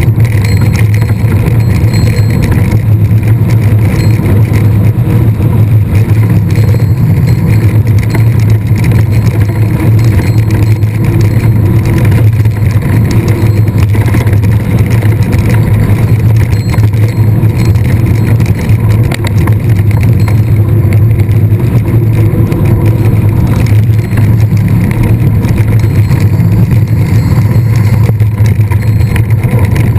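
Mountain bike in motion heard through an onboard camera's microphone: a loud, steady rumble of wind and riding noise with no letup.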